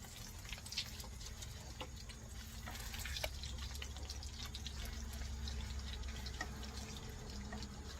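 Egg frying in hot oil in a pan, just flipped, sizzling with many small scattered pops and crackles over a low steady rumble.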